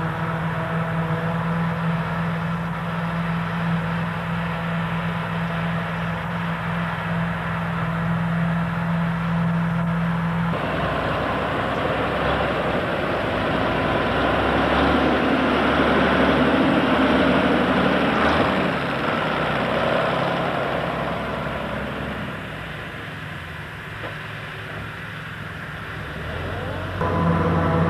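Tractor engine running at a steady pitch. About ten seconds in, a rougher, noisier machine sound takes over, swells and then falls back before rising again near the end.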